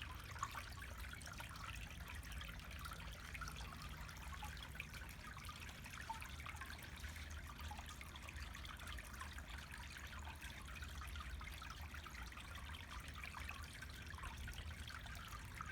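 Water trickling steadily down a green granite pillar fountain, with a low steady rumble underneath.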